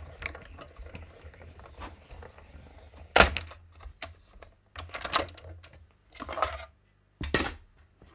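Manual die-cutting machine being run, with a low rumble as the plate sandwich rolls through, and sharp clacks of the cutting plates being handled, the loudest about three seconds in.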